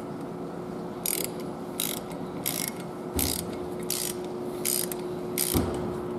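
Hand socket ratchet clicking in seven short strokes about 0.7 s apart as it runs a cam gear bolt down on a Cummins ISX engine.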